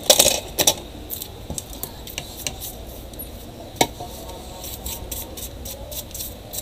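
Clicks and clatter of hard plastic laptop parts being handled on a workbench as the laptop's battery pack is picked up. Several sharp knocks come in the first second, a single knock follows nearly four seconds in, and lighter ticks come near the end.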